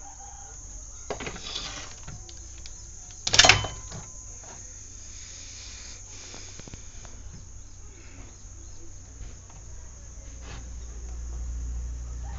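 A CRT TV circuit board being handled and turned over on a workbench: scattered small clicks and knocks, with one loud clatter about three and a half seconds in, over a steady low electrical hum.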